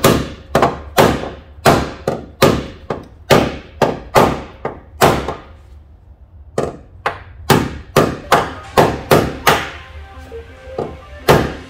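Hammer blows on the steel sheet-metal frame rail of a Nissan 240SX, the metal being beaten down to close it up for welding: sharp strikes about two a second, with a short pause about six seconds in.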